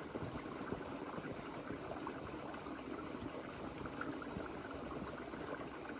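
Steady rain falling, an even patter of many small drops.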